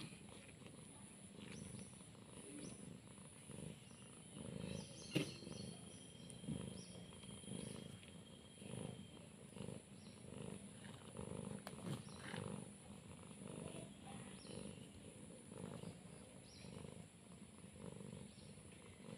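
Domestic cat purring faintly in a steady rhythm of breaths, with one sharp click about five seconds in.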